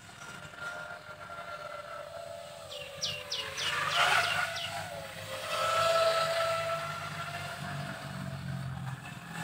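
A 5-inch FPV quadcopter's motors and propellers whining, the pitch sliding up and down as the throttle changes, loudest about four and six seconds in. A quick run of five short high chirps comes about three seconds in.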